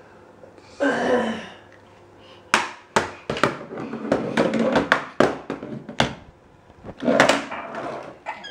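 Hard plastic toy pieces knocking and clacking together in a quick, irregular string of sharp knocks from about two and a half to six seconds in, with a small child's voice just before and after.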